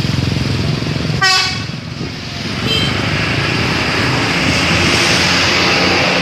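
A bus's telolet air horn gives a short, loud blast about a second in, and a fainter horn note sounds near three seconds. Steady engine and road noise from passing buses runs underneath and grows louder in the second half.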